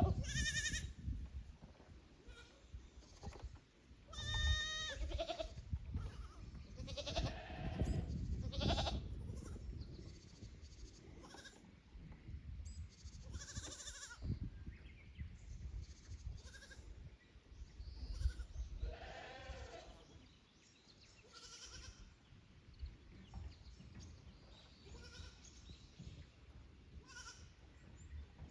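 Goats bleating on and off, a series of separate calls of varying pitch, several with a quavering tremble.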